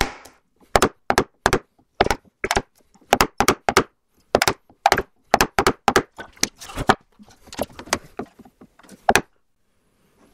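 Wooden mallet striking a chisel to chop out the waste between hand-cut finger joints in a spruce board. A steady run of sharp wooden knocks, two to three a second, that stops about a second before the end.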